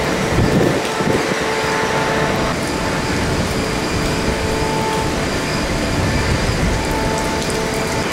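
Steady rush of hurricane wind and rain, loud and unbroken, with gusty rumbling low down.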